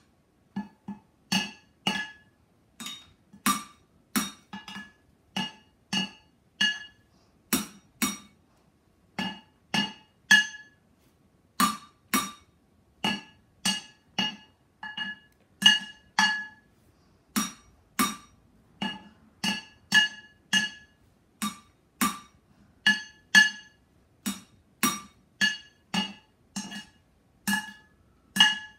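Wooden drumsticks beating on two upturned cooking pots, a loose beat of roughly two hits a second, now and then in quick pairs. Each hit gives a dull thud and a brief metallic ring.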